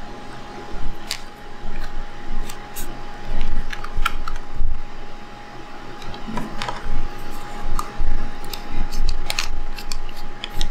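Scattered light clicks and taps from handling a Sony A7R camera body and its tiny screws while it is taken apart, with low handling bumps, over a steady hum from a small fan.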